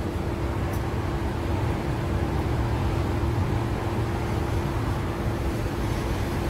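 Steady low rumble of street traffic, with a constant mid-pitched hum under it.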